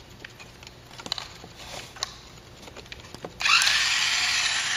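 Faint handling clicks, then about three and a half seconds in the small electric motor and gears of a battery-powered toy car start up, rising briefly in pitch and settling into a loud, steady whirr as the car drives off.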